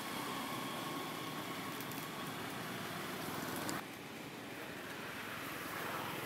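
Steady background noise with a faint hum, no clear animal calls. It changes abruptly to a slightly quieter noise about four seconds in.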